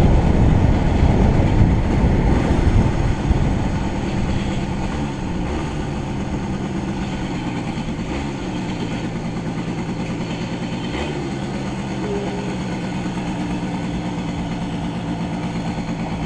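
Motorcycle engine with wind rushing over the microphone for the first few seconds as the bike slows, then settling to a steady pulsing idle.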